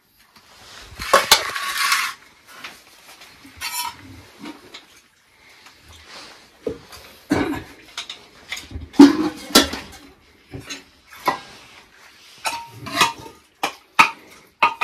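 Dishes and utensils clinking and knocking at irregular intervals, some strikes ringing briefly.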